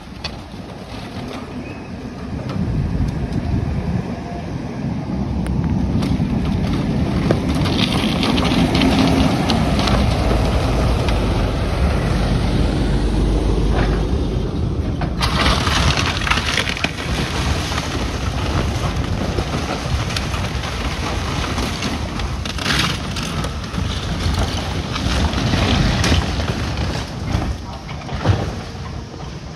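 A truck towing an empty flatbed trailer passes close by with a deep rumble that swells and fades over the first half. After that, an excavator tears down a brick building: crashing and cracking of breaking walls and debris, with several louder crashes near the end as part of the building comes down.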